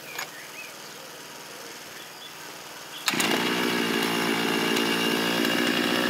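A two-stroke petrol earth auger engine catches about halfway through and runs on steadily at an even pitch.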